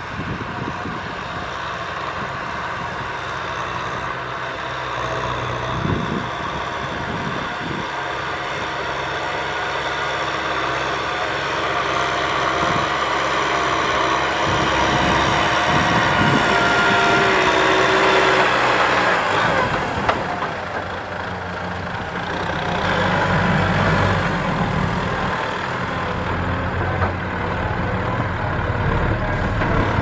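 Kubota M6040SU tractor's four-cylinder diesel engine running steadily under load while pulling a disc plough through stubble. It grows louder toward the middle, drops about two-thirds through, then picks up again.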